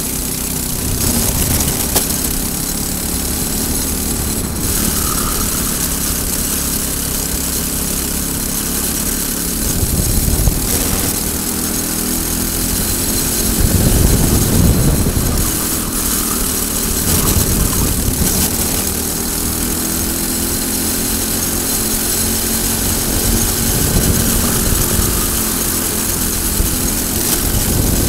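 Briggs & Stratton four-stroke kart engine running at racing load, its pitch rising and falling as the revs climb on the straights and drop into the corners, with wind hiss over the onboard camera.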